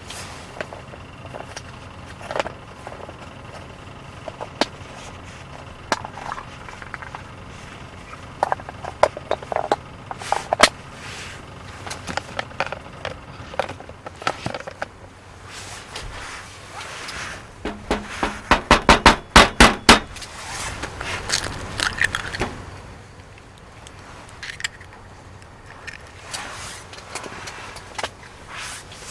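Scattered clicks, knocks and scrapes of things being handled, with a run of about a dozen quick, loud strokes a little over halfway through.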